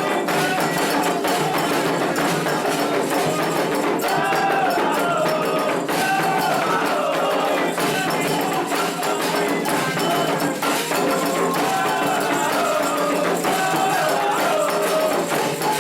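Candomblé ritual music: singing over steady hand percussion with sharp, ringing strikes.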